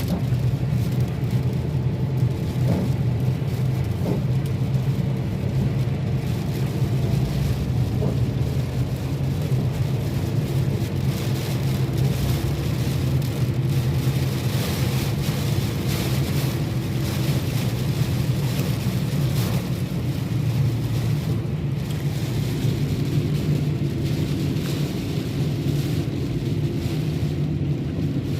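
Steady low rumble of a car driving, with no sudden events.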